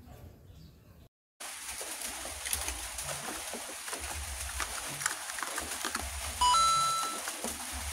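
Plastic blister packs of die-cast toy cars being handled, crinkling and clicking, over a low rumble. About six and a half seconds in, a loud pitched tone sounds for under a second, stepping up in pitch after a brief first note.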